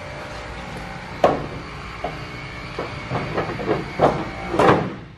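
A light aluminium car hood knocking and clattering against the car's front end as it is lowered into place for a test fit. There is a sharp knock about a second in, then a string of lighter knocks, and a louder clatter near the end.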